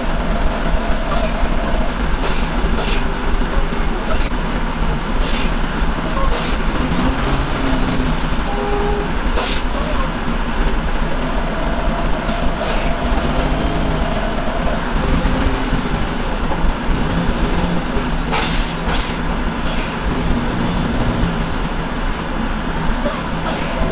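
Heavy truck engine running, heard from inside the cab: a steady low rumble with rattling and scattered sharp clicks and knocks.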